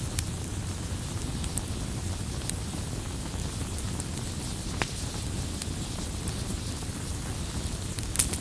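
Burning firewood: a steady low rumble of flames with scattered sharp crackles and pops, a cluster of louder pops near the end.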